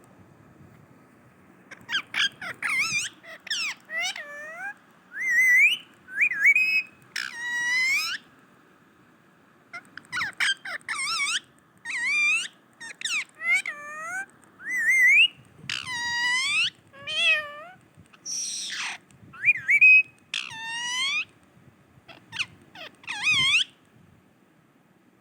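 Pet parrot calling in strings of sharp, whistled squeaks and squawks that swoop up and down in pitch, with a short pause about 9 s in.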